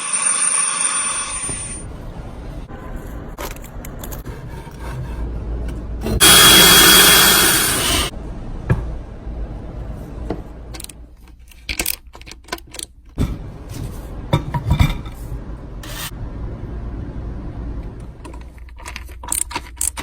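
Scraping and rubbing handling noises with scattered clicks and knocks over a low steady hum. About six seconds in there is a loud rushing noise that lasts about two seconds.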